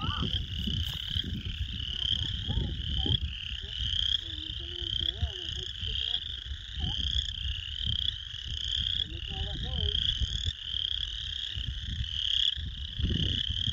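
A chorus of many frogs calling from a pond: a dense, unbroken run of short, high trills overlapping one another, with a low rumble underneath.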